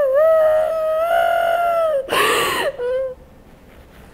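A woman crying aloud: a long, high, wavering wail that breaks off about two seconds in with a noisy breath, then one short whimper before she falls quiet.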